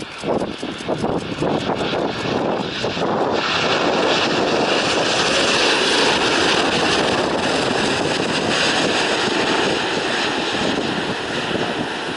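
Jet engine noise from a Boeing 787-9 airliner coming in to land: a loud, steady rush that swells about three seconds in and eases slightly near the end.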